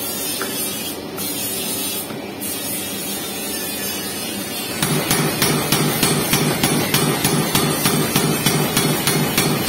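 Mechanical power forging hammer pounding, its blows starting about halfway through and repeating evenly at about three a second.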